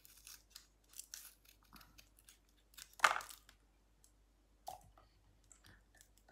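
Scissors snipping open the corners of small paper milk cartons: a string of short, sharp cuts and carton crinkles, with one louder crunch about three seconds in.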